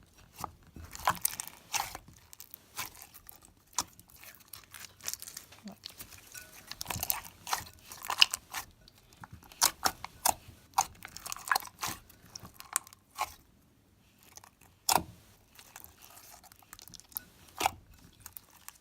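Slime being squeezed and pulled by hand, making irregular sticky clicks, pops and crackles. It is stiff, heavily activated slime made from jelly-like glue.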